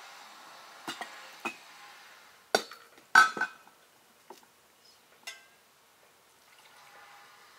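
Enamel pots and a drinking glass clinking against each other and being set down on the tabletop. There are a few light knocks, then two loud ringing clinks about two and a half and three seconds in, then lighter taps.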